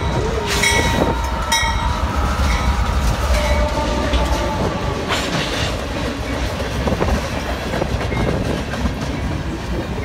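Canadian Pacific freight train passing close by: the leading GE AC4400CW diesel locomotive runs past, then the loaded freight cars roll by in a steady rumble with wheels clacking over the rail joints.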